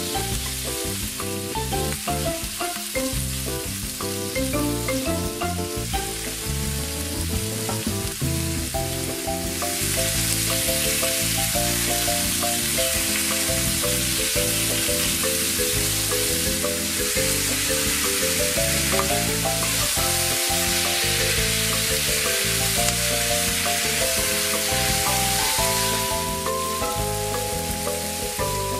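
Sliced beef belly sizzling in hot sesame oil in a frying pan while it is stirred with chopsticks; the frying gets louder and denser about ten seconds in. Background music with steady notes and a bass line plays throughout.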